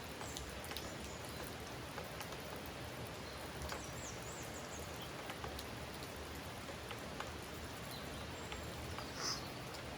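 Steady rain falling, with individual drops tapping close by. A brief high call sounds near the end, louder than the rain.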